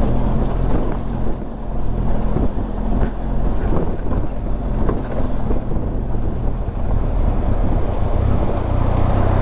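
Vehicle engine running steadily while driving, with wind buffeting the microphone and scattered small knocks and rattles.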